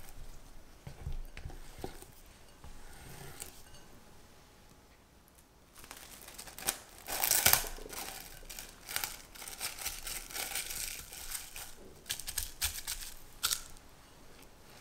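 A silicone spatula scraping softly around a glass mixing bowl, then plastic cling wrap crinkling and crackling loudly as it is pulled, torn and pressed down over the bowl.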